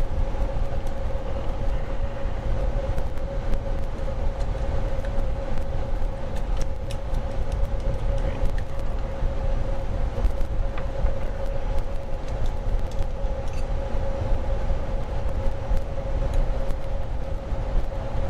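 Steady mechanical hum: a constant mid-pitched tone over a low rumble, with a few faint clicks scattered through it.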